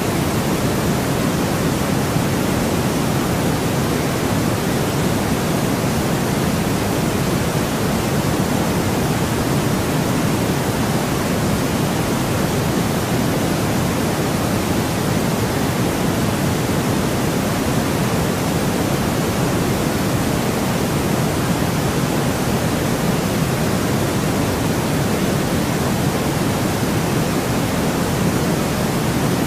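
Steady synthetic noise, even and unchanging, with a little more weight in the low end than high: the generated white noise of a sleep-sound track.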